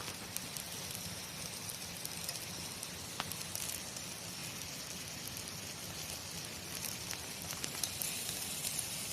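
Wood campfire crackling quietly, with scattered sharp pops over a soft steady hiss.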